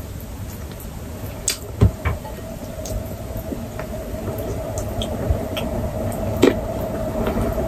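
Eating sounds: chewing with small crackles and clicks as crispy roast chicken is picked apart by hand, one sharper click about two seconds in, over a steady low background hum.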